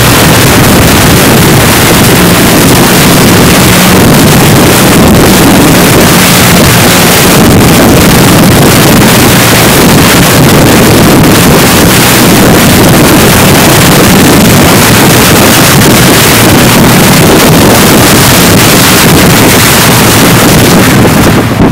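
Car driving through deep puddles on a flooded dirt track: continuous loud rushing and splashing of water spray thrown against the car body, over the steady sound of the engine running, with wind buffeting the microphone.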